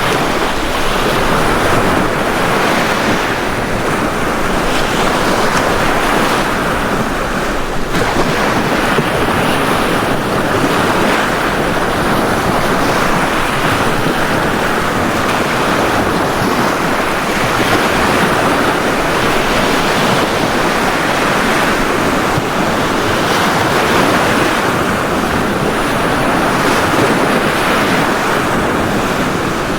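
Ocean surf washing onto a beach: a steady rush of breaking waves with gentle swells in loudness.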